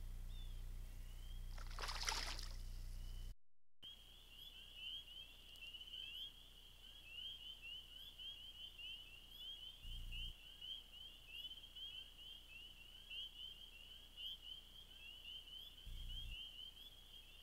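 A dense chorus of frogs calling, a continuous high trill of rapid short notes, starting after a cut about four seconds in. Before it, a low hum with one brief rush of noise about two seconds in.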